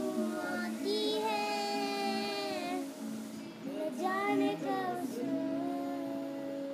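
A boy singing without words in two long phrases with held, wavering notes, over a steady drone that keeps sounding on its own after he stops about five seconds in.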